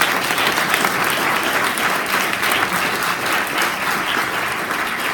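An audience applauding: dense, steady clapping from many hands that eases off a little toward the end.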